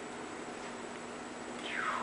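Steady background hiss with a faint hum, and near the end a short high call falling in pitch.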